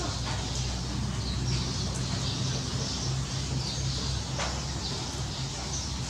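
Steady heavy rain falling on leaves and gravel, with runoff streaming from a roof edge, over a low steady hum. A couple of short sharp sounds cut through, about half a second in and again near the middle.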